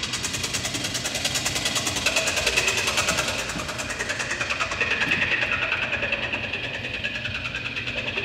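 Electronic music from a modular synthesizer: a rapid, even, motor-like pulsing that swells, with a high held tone coming in about two seconds in.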